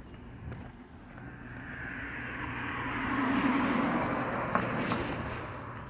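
A motor vehicle passing by on the street, growing louder to its loudest about halfway through, then fading away.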